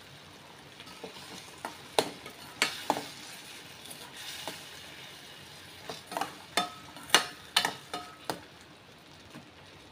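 A metal spoon stirring thick citron pickle in a stainless steel kadai, clinking sharply against the pan several times in two bunches, over a faint steady sizzle of the mixture cooking on high heat.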